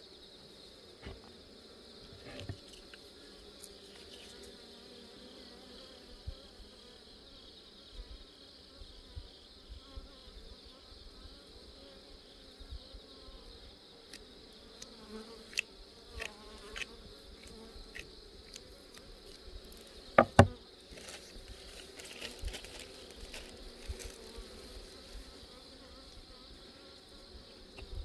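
Honeybees buzzing steadily around an open hive, with scattered clicks and knocks; the loudest are two sharp knocks close together about twenty seconds in.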